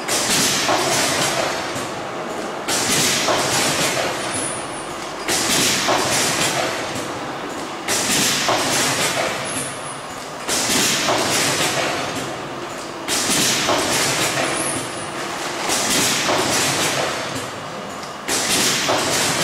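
Sauce packaging machine running through its repeating cycle: a sudden burst of hiss about every two and a half seconds, fading before the next, over a steady machine clatter.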